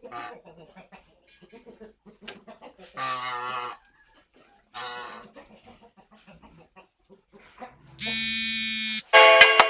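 Scattered farmyard animal calls, chicken clucking among them, then a mobile phone ringtone starts up loud near the end with a steady tone and a quick melody of bright notes.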